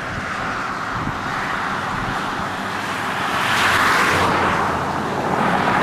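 Rushing road noise as a vehicle passes, loudest about four seconds in, with another swell near the end.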